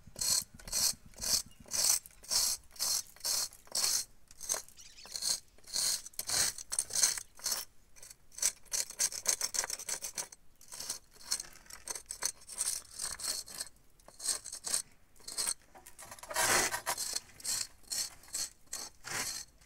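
A carbon-steel nail set through a small wooden block, dragged along the mortar joints of a concrete-block column to rake them to an even depth: quick, repeated scraping strokes, about three a second, with one heavier stroke near the end.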